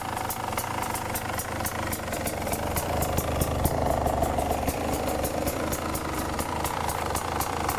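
Single-cylinder two-stroke engine of a 2018 Beta RR 300 enduro motorcycle running steadily near idle, with a regular light ticking several times a second over it.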